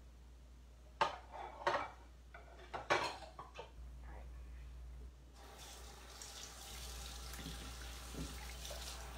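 A few sharp clatters of kitchenware being handled and set down in the first half. Then, about halfway through, a kitchen tap is turned on and runs steadily into the sink for hand washing.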